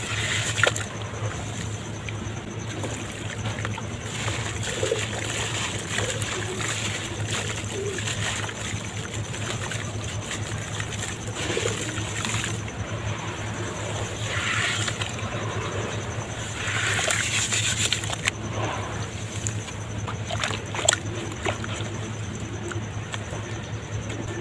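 Lumps of dry red dirt crumbling and breaking apart in water, with continual small splashes, trickling and scattered sharp crackles.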